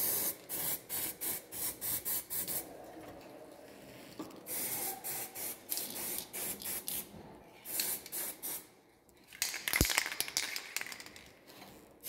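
Aerosol spray-paint can hissing in many short, quick bursts, then in longer sprays of a second or two at a time, with a single sharp knock near the end.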